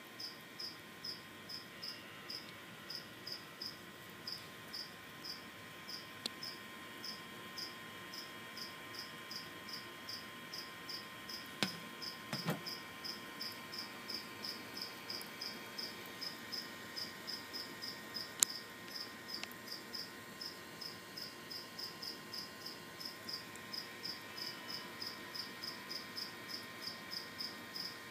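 A cricket chirping steadily, short high chirps repeating evenly a few times a second, with a few light knocks around the middle.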